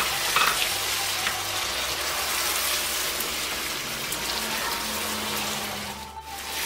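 Goat meat and tomato purée sizzling in a hot frying pan while being stirred with a spatula, during the bhuna stage where the masala is fried down. The sizzle dips briefly near the end.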